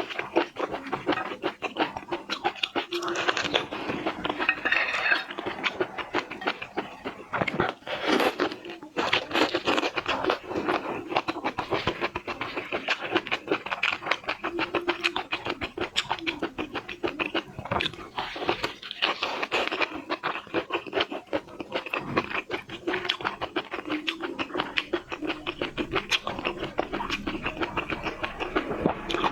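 Close-up eating sounds of a person peeling and eating prawns: shell crunching and scraping, chewing, and wet mouth clicks in a dense, continuous crackle.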